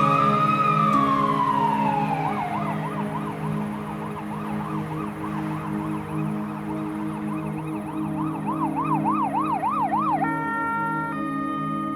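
Emergency vehicle siren: one slow wail rising and falling, then a fast warble, over a low steady drone. About ten seconds in it gives way to steady synthesized music notes that change pitch in steps.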